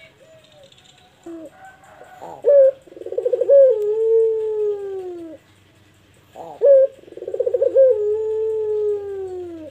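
Pelung-type ringneck (barbary) dove cooing twice. Each call is a short sharp note, then a rolling burr, then a long drawn-out coo that slowly falls in pitch.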